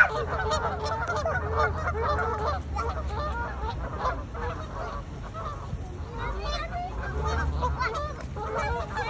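A flock of geese honking, many calls overlapping without a break, over a steady low rumble.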